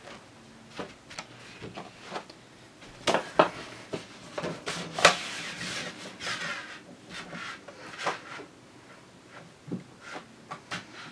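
Sheets of heavy drawing paper being handled and slid across a paper trimmer's bed: rustling and rubbing, with several sharp knocks, the loudest about five seconds in.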